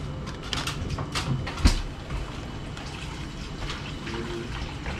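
Kitchen handling noises: several light knocks and clicks, then a hard thump about 1.7 s in, the loudest sound here. After that comes a steady run of tap water.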